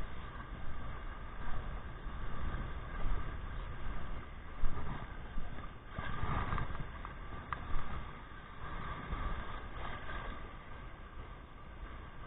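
Muffled rumble of wind and shallow surf, rising and falling in surges every second or two, with a louder surge about six seconds in.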